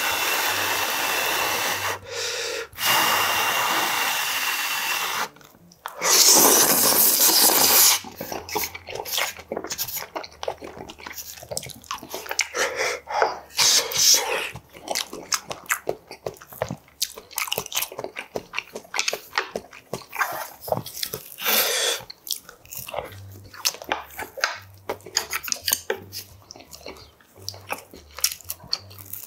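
A person eating spicy budae bokkeum, close to the microphone. It opens with three long, loud rushes of breath at the mouth over hot food, the last the loudest. Then comes steady wet chewing and smacking with many quick small clicks.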